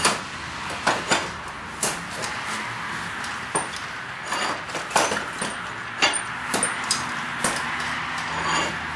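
Irregular metallic clicks and clanks, about a dozen, as the de-rusted screw and handle of an old blacksmith's leg vise are worked, over a steady background hiss.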